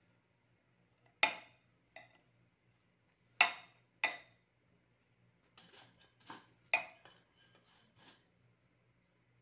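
A metal spoon knocking and clinking against a cooking pot and a mesh strainer as small silverfish are scooped into the pot. There are single sharp clinks about a second, two seconds, three and a half and four seconds in, then a quicker run of clinks between about five and a half and eight seconds.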